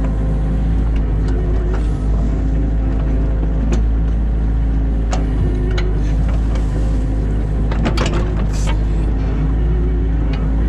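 New Holland Kobelco E50.2 mini excavator's diesel engine running steadily under digging load. Short sharp clicks and scrapes break through a few times, with a cluster about eight seconds in.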